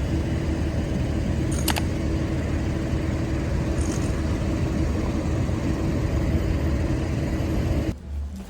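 Steady rumbling mechanical noise with a constant low hum, with a couple of faint ticks; it drops off sharply near the end.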